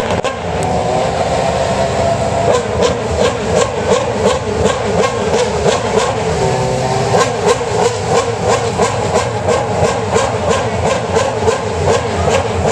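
Mercedes-Benz Formula 1 car's engine running and warming up, with sharp regular pulses about three times a second.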